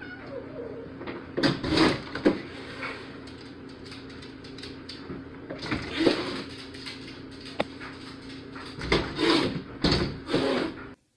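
A glass storm door thumping and rattling in three bouts as a cat jumps up and claws at it, over a steady low hum.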